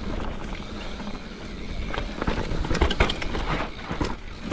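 Mountain bike riding down a dirt trail: a steady rumble of the tyres on packed dirt, then from about two seconds in a quick run of knocks and rattles as the bike goes over bumps and roots.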